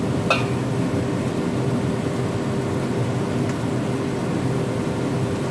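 Stir-fried chicken breast and chives boiling in their liquid in a wok, a steady bubbling over a constant low drone, with one light tap just after the start.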